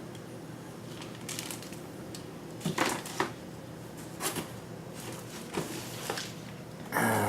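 Irregular clicks, taps and rustles of hard plastic comic-book grading slabs and their packaging being handled.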